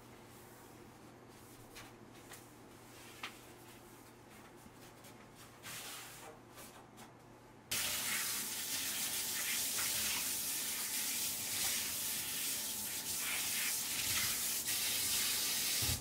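Kitchen tap running into a stainless steel sink while a cloth is rinsed under the stream. It cuts in suddenly about halfway through, after a quiet stretch with a few faint clicks.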